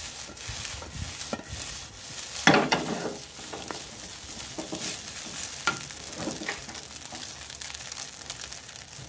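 Fried rice with egg sizzling in a metal wok over high heat while a wooden spatula stirs and scrapes it. A steady hiss runs throughout, with separate spatula strokes on top, the loudest about two and a half seconds in.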